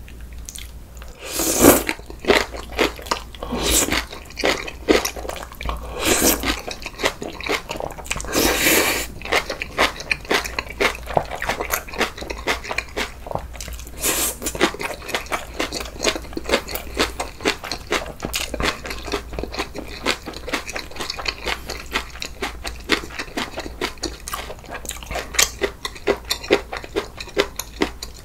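Close-miked chewing and crunching as a man eats spicy kimchi: a continuous crisp crackle of crunches, with a few louder bites in the first ten seconds or so.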